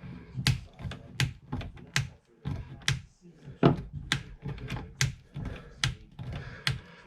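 Wood screw being turned by hand into hardwood with a screwdriver: a series of sharp clicks and knocks, about two a second, as the screw is driven tight.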